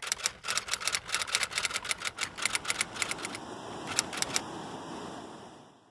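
Typewriter keys striking in a quick run, about five a second, then a short pause and a few more strikes about four seconds in, over a steady hiss and rumble that fades out at the end.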